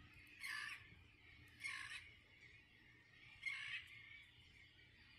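Faint calls from a large flock of birds on a distant island: three short calls, a second or two apart.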